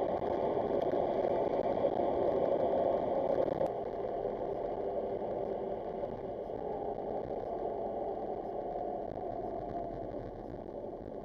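Car driving, heard from inside the cabin: a steady mix of engine and tyre-on-road noise. About three and a half seconds in there is a faint click, after which the noise is a little quieter and slowly fades.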